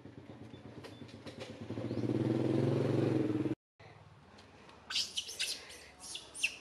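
A motor vehicle engine running with a steady hum that grows louder about two seconds in, cut off abruptly a little past the halfway point. After it comes a run of high, sharp chirping animal calls near the end.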